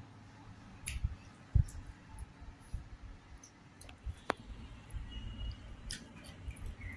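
Eating by hand: fingers mixing rice with crisp deep-fried bitter gourd on a plate, and chewing. Scattered soft clicks and crackles, with a few dull thumps, the loudest about one and a half seconds in.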